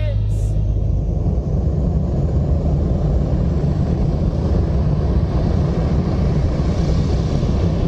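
A steady, loud low rumbling noise with a fainter hiss above it, and no tune or beat. The hiss grows slightly near the end.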